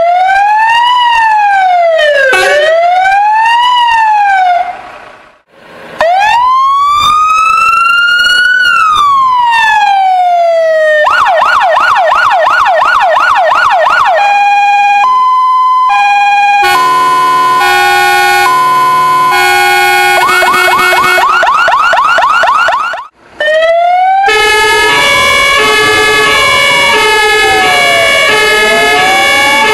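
Fire engine electronic sirens run through their tones: a rising-and-falling wail, one long slow wail, a fast yelp, and a two-tone hi-lo. They cut out briefly about five seconds in and again about 23 seconds in. In the last stretch a different siren sweeps slowly up and down over steady layered notes.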